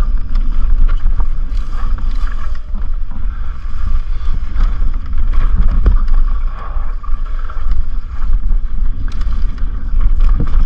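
Wind buffeting a helmet-mounted camera's microphone during an e-mountain bike ride, a loud, steady rumble, with scattered clicks and rattles from the bike over rough trail.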